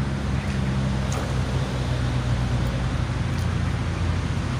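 A steady low engine drone with a constant hiss over it, deepening slightly near the end.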